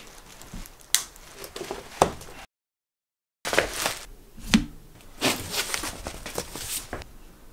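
Scattered knocks, scrapes and rustles of a cardboard box being handled and moved, broken by about a second of total silence about two and a half seconds in.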